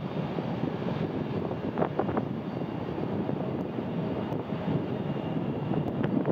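Jet airliner engines, heard as a steady rushing noise with a few brief clicks about two seconds in.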